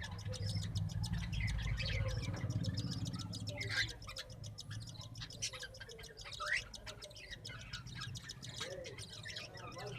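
Small cage birds chirping and twittering in a busy, overlapping chatter, with a low rumble during the first four seconds.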